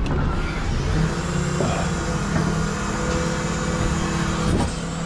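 Garbage truck engine running, its pitch climbing about a second in and then holding steady.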